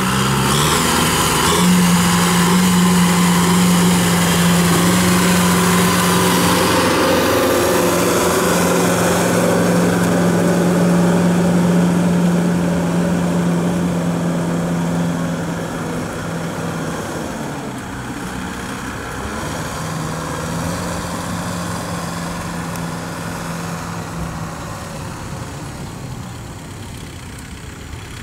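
Kubota tractor's diesel engine running steadily with a strong low hum as it drives by, louder through the first half and easing off somewhat after about fifteen seconds.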